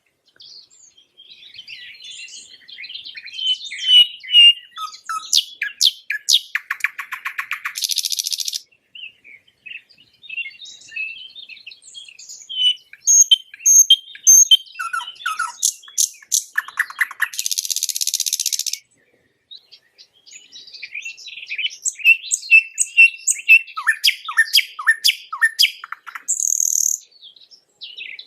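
Nightingale singing three long phrases, each a run of varied whistles, rapid clicking trills and a low rattling trill ending in a harsh buzzy note, with short pauses between the phrases.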